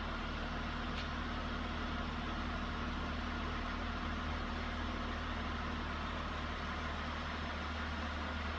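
Honda Pilot's 3.5-litre V6 idling with a steady, even hum.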